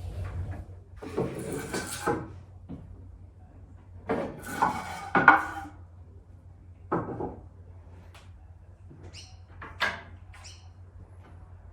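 Levelling blocks being pulled out from under a glass gate panel: a few separate scrapes and knocks, the loudest cluster about four to five seconds in, with sharp clicks near the end.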